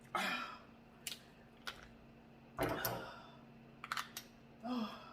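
Eating a seafood boil of Dungeness crab: a scatter of sharp clicks and cracks from crab shells and utensils, with one heavier knock about two and a half seconds in. Brief murmurs come at the start and near the end.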